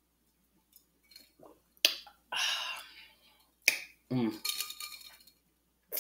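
Quiet sipping from a stemmed drinking glass, then a sharp glass clink, a breathy exhale, a second clink as the glass is lowered, and a short falling hum of approval.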